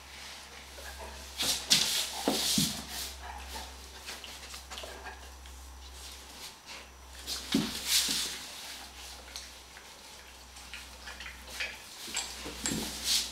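Short dog noises from a Rhodesian Ridgeback and a chocolate Labrador at gentle play, in three brief bursts about two, eight and twelve seconds in.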